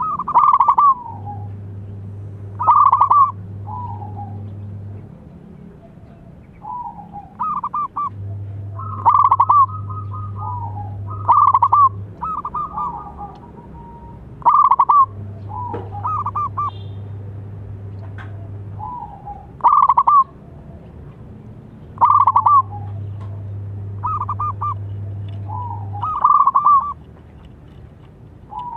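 Zebra dove (perkutut) singing its rolling cooing phrases, short bursts repeated every one to three seconds. Under it, a low hum comes and goes in stretches of a few seconds.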